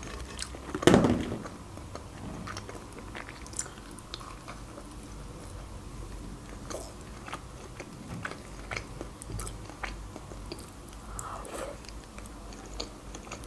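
Close-miked eating of a crunchy fried onion ring: a loud bite about a second in, then steady chewing with small crunches and mouth clicks.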